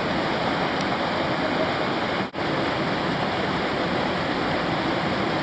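Steady rush of whitewater from a river wave and rapid, with a brief break about two seconds in.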